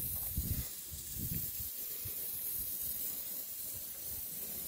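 Steady hiss of steam from a live-steam model of the LMS Coronation-class locomotive Duchess of Hamilton, standing on the track with steam up, with a few soft low knocks in the first second or so.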